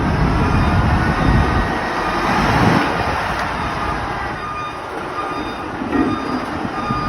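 Chetra TK25 heavy machine running with a loud, steady mechanical clatter as it is loaded.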